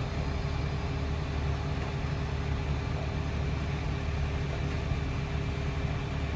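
A fire ladder truck's diesel engine running steadily while its aerial ladder is raised: an even low rumble with a steady hum above it.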